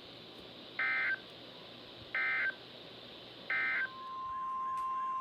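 NOAA Weather Radio Emergency Alert System signalling: three short, identical bursts of SAME digital data tones about a second and a half apart, then the steady 1050 Hz warning alarm tone fading in near the end, which leads into a new flood warning.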